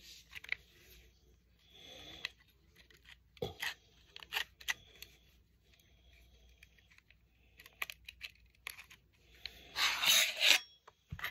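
Metal parts of a Desert Eagle .44 Magnum pistol being handled during reassembly: scattered light clicks, taps and small scrapes, then a louder scrape lasting under a second near the end.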